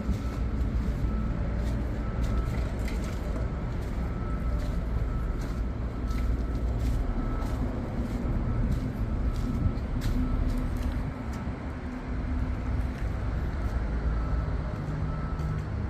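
Shantui SD13S bulldozer's diesel engine running steadily with a low, even rumble.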